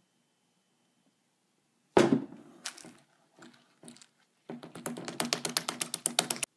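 A sudden thump about two seconds in, a few scattered taps, then a rapid run of about ten sharp taps a second over the last two seconds as a bare hand churns and slaps a wet, sticky powder mix in a glass baking dish.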